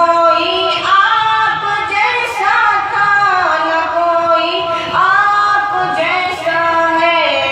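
A young man's high solo voice singing an unaccompanied devotional chant. He holds long notes and slides between pitches in ornamented phrases.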